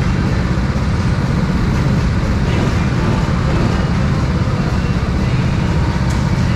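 Go-kart engine running steadily.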